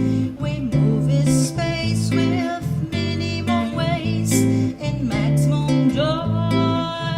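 Brazilian music on acoustic guitar: plucked chords over a low bass line, with a voice singing a wavering melody above.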